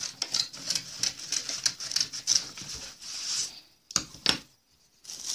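Scissors snipping through paper, with paper rustling: a quick run of short crisp snips, then two sharper clicks about four seconds in.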